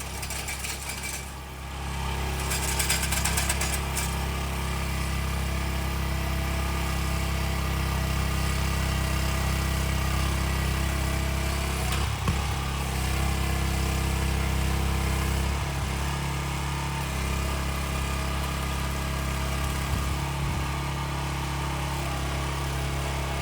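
Engine of trenching machinery running steadily, with a constant low drone; it comes up in level about two seconds in.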